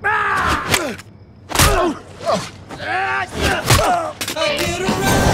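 Men yelling and screaming in several strained cries that fall in pitch, with a sharp thud about a second and a half in and another near four seconds.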